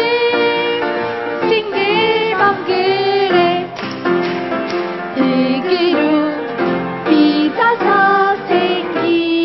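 Music: a song sung by a woman's and children's voices together, with instrumental backing.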